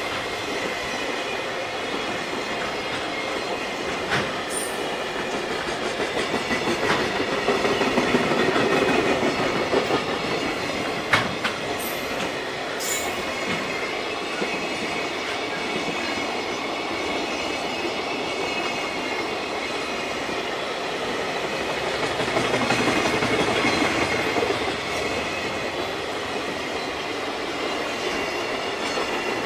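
Freight train's container flatcars rolling past at close range: steady wheel-on-rail rumble with clicks from the rail joints. A few brief high wheel squeaks come about four seconds in and again around twelve seconds.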